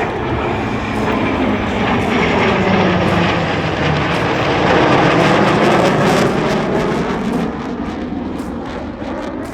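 A formation of piston-engined propeller trainer aircraft flying past. The engine noise builds to a peak about halfway through, drops in pitch as the aircraft pass, then fades.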